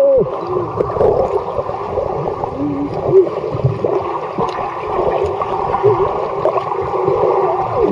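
Pool water churned by a swimmer, heard by a microphone underwater: muffled, continuous gurgling and bubbling, with short pitched bubble chirps every second or so.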